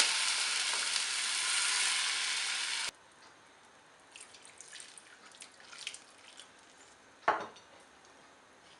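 Water poured into a hot wok of frying chickpeas and vegetables, hissing and sizzling loudly, then cutting off abruptly about three seconds in. Afterwards a wooden spoon stirs the watery soup with faint scattered taps and one louder knock against the pan a little past seven seconds.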